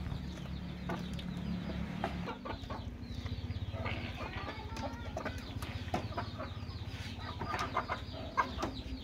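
Chicken clucking, with many short high chirps over a steady low hum.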